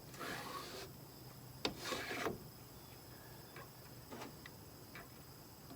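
Sliding glass side window of a Land Rover Series 2A being forced along its dirty, mouldy felt runner channel: two short scraping, rubbing strokes, a sharp click between them, then a few light ticks as the stiff glass starts to move.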